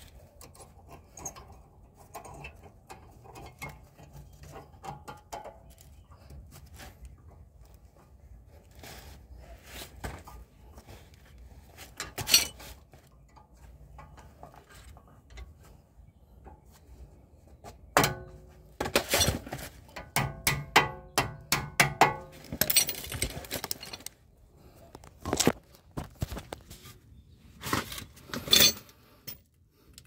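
Metal brake hardware and hand tools clinking and knocking at a car's front brake caliper during a brake pad job, with a busier stretch of clattering a little past the middle.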